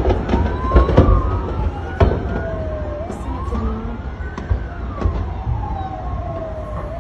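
Emergency-vehicle siren wailing in slow rising and falling sweeps, about one every three seconds. Over it come sharp bangs from explosions in a large fire: a cluster in the first two seconds and a couple more about five seconds in.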